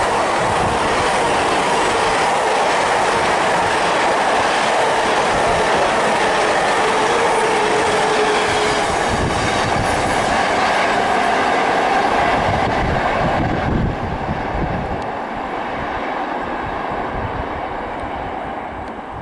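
Long intermodal container freight train rolling past, its wagons rattling and clattering over the track, with a faint wheel squeal on the curve. The noise drops suddenly about two-thirds of the way through and fades as the last wagons pull away.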